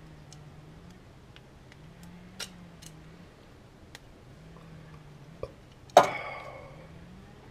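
Light clicks and taps of parts and tools being handled, then about six seconds in one sharp clank that rings briefly, like a tool set down hard.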